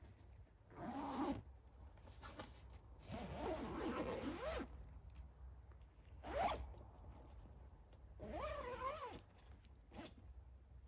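A zip pulled open or shut in four separate strokes, each a short rasp whose pitch rises and falls with the speed of the pull.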